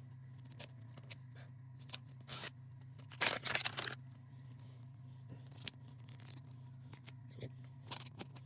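Scissors snipping and clicking at a blind-box capsule's plastic wrapping, with crinkling plastic rustles about two and a half and three and a half seconds in, over a steady low hum.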